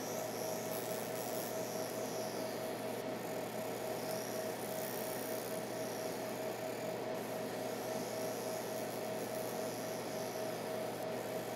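Cloudray 50-watt fiber laser running as its beam ablates the epoxy casing off a computer chip. It gives a steady hum with one held mid-pitched tone and faint high whistles that rise and fall every second or two.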